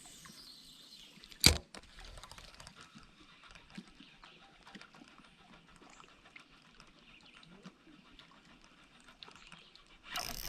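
Faint small ticks and clicks of a fishing reel and tackle being handled while a lure is worked, with one sharp loud click about a second and a half in. A louder rush of noise comes in just before the end.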